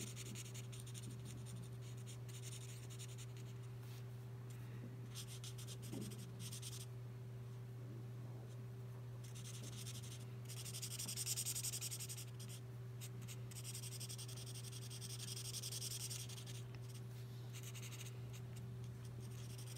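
Felt-tip marker nib rubbing across paper in runs of quick short strokes as a pale jade green L'emouchet Twin Marker colours in leaves, with brief pauses between runs. A steady low hum sits underneath.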